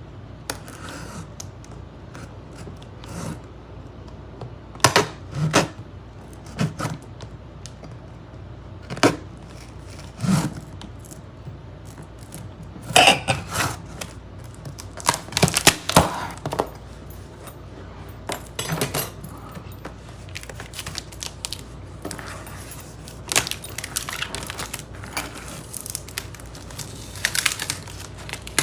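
Irregular scrapes, taps and knocks as a cardboard appliance box is cut open with a butter knife and its packing handled, with a few sharper clatters.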